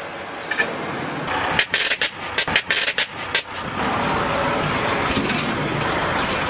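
A quick series of sharp cracks and snaps, about ten in two seconds, as a train wheel crushes objects on the rail, followed by a steady rumbling noise of the train rolling on the track.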